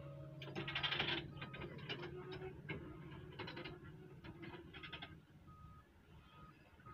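Footsteps crunching on dry, stony soil, heard as bunches of rapid clicks that thin out after about five seconds. A faint short beep repeats about twice a second from a machine's reversing alarm, clearest in the second half.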